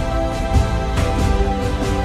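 Background music with a steady beat over held, sustained notes.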